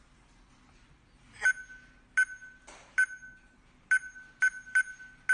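Smart door lock's touch keypad beeping once per key press, about six short identical beeps at irregular intervals, as a password is entered. The code is the expired temporary password.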